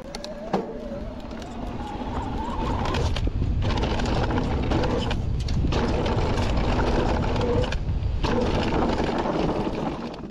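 Electric mountain bike riding fast down a dirt singletrack: tyres rumble and crunch over the dirt, and the bike rattles with many quick knocks over bumps. Wind rushes heavily over the microphone, growing louder as speed builds about three seconds in. A thin whine from the bike rises in pitch over the first few seconds.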